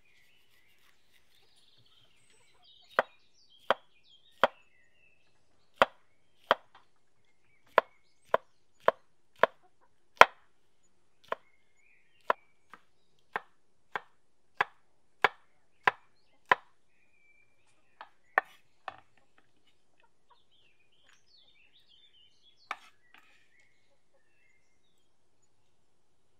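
Kitchen knife chopping a red bell pepper on a wooden cutting board: about twenty sharp knocks of the blade striking the board, one or two a second, starting about three seconds in and stopping a few seconds before the end, with one last knock later.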